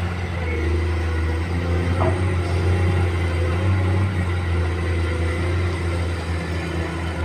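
Komatsu PC210 hydraulic excavator's diesel engine running with a steady low drone, with faint shifting tones above it and a small click about two seconds in.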